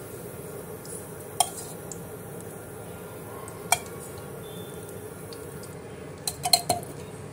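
A few light clicks of a utensil against a nonstick kadhai, singly about a second and nearly four seconds in and as a quick cluster near the end, over a steady low hum.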